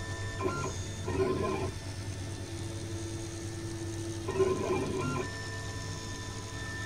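RB3 FDM 3D printer running its first layer: the stepper motors whine steadily as the print head travels along the gantry. The motor tone shifts and gets busier as the head changes direction, about half a second in and again about four seconds in.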